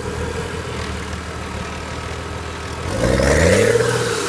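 Off-road 4x4's engine running steadily, then revving up about three seconds in, rising in pitch and getting louder as the mud-tyred front wheel spins and throws dirt.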